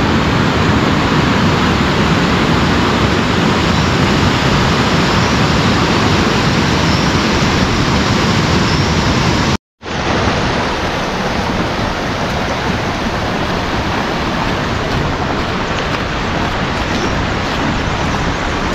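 Steady heavy rain, a dense even hiss. It cuts out completely for a moment a little under halfway through, then goes on slightly quieter, with a few faint ticks near the end.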